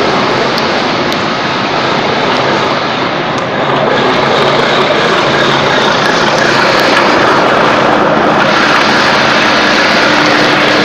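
Loud, steady machinery noise, a dense hum and rush that grows a little louder about four seconds in.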